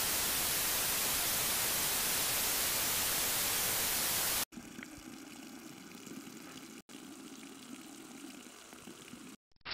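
A steady, loud hiss like static cuts off abruptly about four and a half seconds in. A much quieter, duller noise with a few faint ticks follows, broken by a brief dropout near seven seconds and cut off again just before the end.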